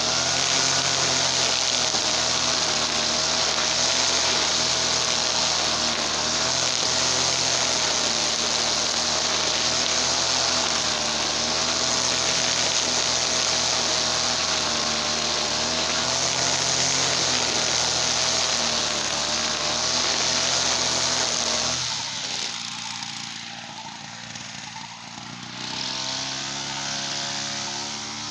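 Easyman TL33 two-stroke petrol brush cutter engine running steadily at high speed. About three quarters of the way through, the throttle drops back toward idle, and near the end the engine revs up again.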